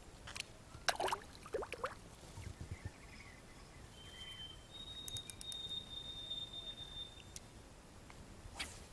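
Faint outdoor ambience with a few scattered clicks, and a bird's clear whistled note. The note steps up after a short first tone and is held about two seconds.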